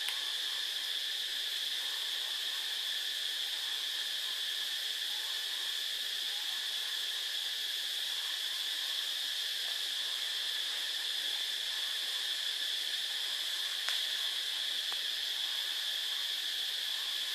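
A steady high-pitched whine that holds unchanged, with a faint light knock about fourteen seconds in.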